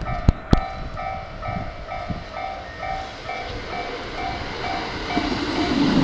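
Japanese railway level-crossing warning bell ringing steadily at about two dings a second, with two sharp clicks under a second in. About five seconds in, the rumble of an approaching JR E217 series train grows loud as it reaches the crossing.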